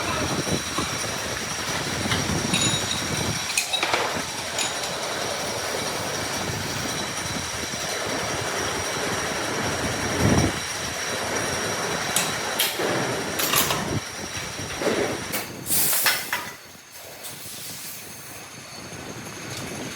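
Workshop machinery running: a steady mechanical noise with a constant high whine and several sharp metallic clanks, dying down about three-quarters of the way through.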